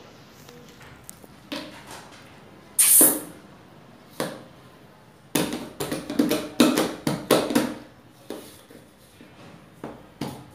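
A toddler's hands slapping a plastic bowl: about a dozen quick, sharp smacks over two seconds past the middle, with a few lighter knocks after. A short, loud hiss comes about three seconds in.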